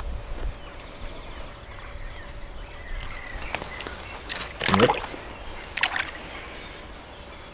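Water splashing at the edge of a creek as a small brown trout is let go by hand: a short splash about four and a half seconds in, then a smaller one about a second later.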